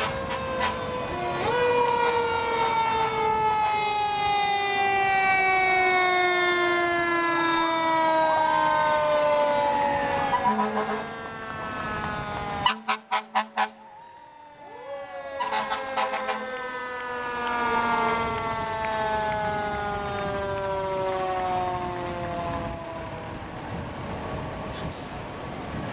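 New Ferrara fire engines' sirens sounding as the trucks roll in, each wail sliding slowly down in pitch over about ten seconds, with short upward swoops. The wail falls twice, and there is a brief burst of sharp clicks between the two.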